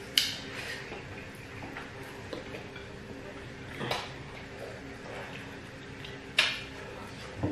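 People eating rice and chicken by hand: quiet eating sounds with four short, sharp clicks, the first and third the loudest, over a faint steady hum.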